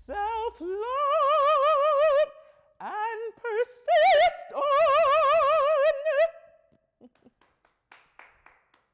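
A mezzo-soprano opera voice singing a short phrase unaccompanied, with wide vibrato on two long held notes; the singing ends about six seconds in and a few faint ticks follow.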